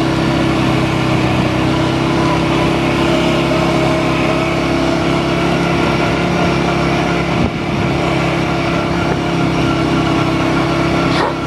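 ATV engine running loud and close at a nearly steady pitch, dipping briefly about seven and a half seconds in.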